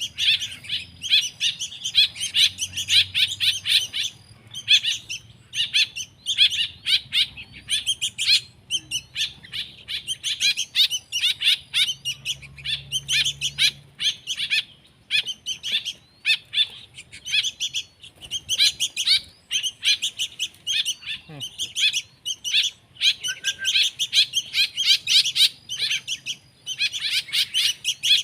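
Small birds chirping: a dense, fast run of short high chirps, with brief pauses now and then.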